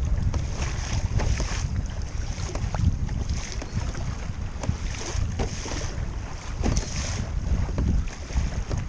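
Wind buffeting the microphone with a heavy, uneven rumble, while choppy water slaps and splashes against the kayak's hull, the spray hiss swelling and fading every second or two along with short knocks of waves.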